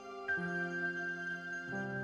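Instrumental intro music of a rap song: soft sustained chords with no drums yet, moving to new notes about half a second in and again near the end.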